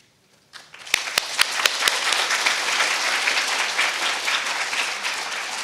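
Audience applauding in a lecture hall. The clapping starts about a second in, with a few sharp single claps at first, and then holds as a steady patter that eases slightly near the end.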